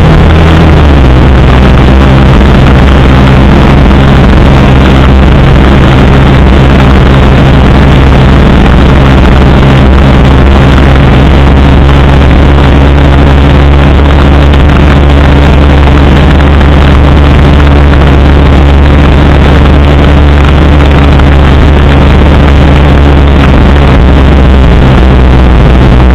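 Motorcycle engine running steadily at cruising speed, very loud, with wind rushing over the microphone; the engine note drops slightly about a second in.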